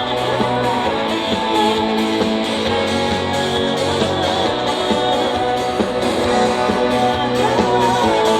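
Instrumental band music with guitar and a steady beat, played loud over the concert sound system, with no singing.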